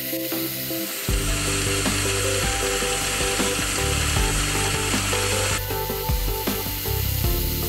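Small twist drill in a machine spindle cutting pilot holes through stacked brass plates, the cutting noise starting about a second in and easing briefly near the end.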